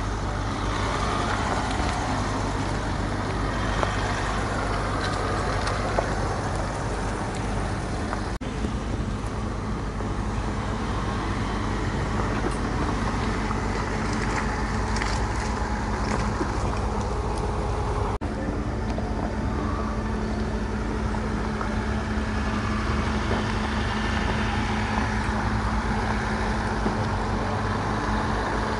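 Land Rover Defender driving slowly over an off-road course, its engine running steadily under a low drone. The sound breaks briefly twice where the shots change.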